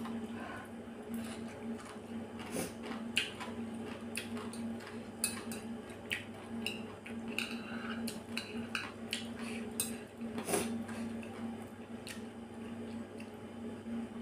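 Metal chopsticks clicking and scraping against a ceramic bowl in many short, irregular strikes, with chewing sounds between, over a steady low hum.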